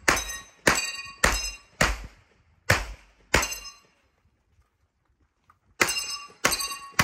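Pistol shots in a fast string, about one every half second: six in the first three and a half seconds, a pause of about two seconds, then more shots near the end. Each shot is followed by the metallic ring of steel plate targets.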